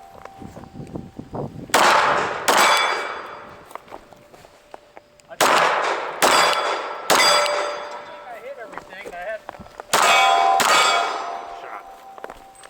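Seven pistol shots fired in three quick strings (two, three, two), each followed by the ringing clang of a struck steel target plate.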